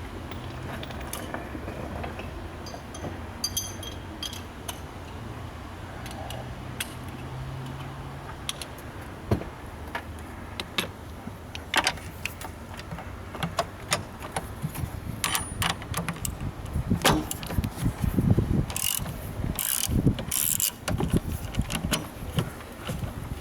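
Ratchet wrench with a 10 mm socket clicking in irregular runs as nuts are worked during a car battery change. The clicking is sparse at first and grows busier and louder near the end, over a faint steady low hum.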